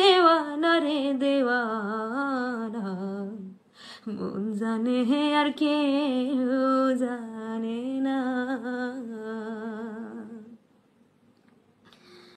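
A singer's voice closing a Baul folk song with long, wavering held notes, one falling phrase, a short break about three and a half seconds in, then a second long phrase. The voice fades out about ten seconds in.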